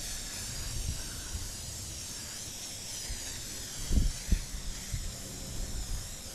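Aerosol spray-paint can spraying in a steady hiss that stops suddenly near the end. Two dull knocks come about four seconds in.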